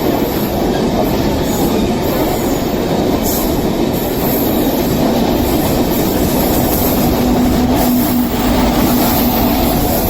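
Rajdhani Express passenger train running past with loud, steady rail and wheel noise. A faint low steady tone joins about six seconds in.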